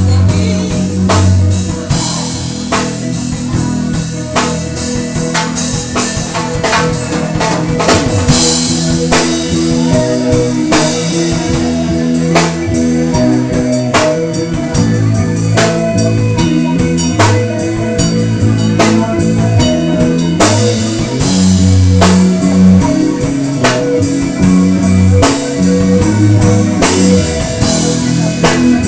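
Rock band music with no vocals: drum kit keeping a steady beat under electric guitar and bass.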